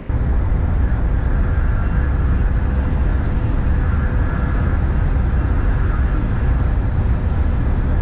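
Passenger train running at speed, heard from inside the carriage: a loud, steady rumble with a faint whine over it.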